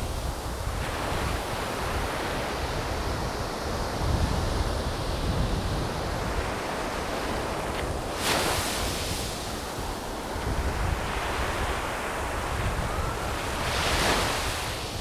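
Waves washing onto a beach with wind buffeting the microphone, a steady rushing surf with gusty low rumble. Two louder, hissing wave washes swell up about eight and fourteen seconds in.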